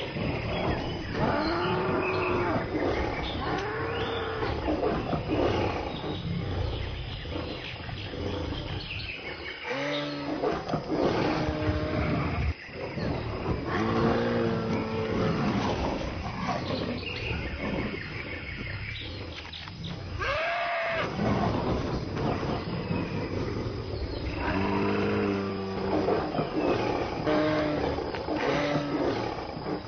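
Cape buffalo bellowing in distress as lions attack it: a string of long moaning calls every few seconds, each rising then falling in pitch, over continuous lion growling.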